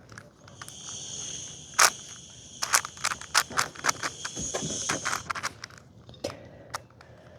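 6x6 plastic puzzle cube being turned by hand: a run of quick, sharp plastic clicks and clacks as the layers are twisted. Behind them a high, thin steady whine sounds and stops about five seconds in.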